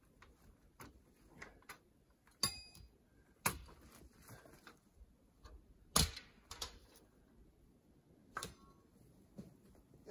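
Scattered sharp knocks and clinks from hand work with stones and tools, five or so spread unevenly, the loudest about six seconds in; one about two and a half seconds in rings briefly like metal.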